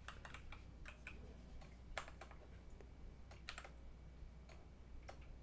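Faint typing on a computer keyboard: a quick, irregular run of keystroke clicks over a steady low hum.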